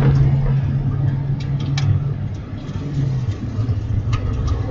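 Car engine pulling under throttle, heard from inside the cab with road rumble. Its steady note drops lower about two seconds in as the driver eases off.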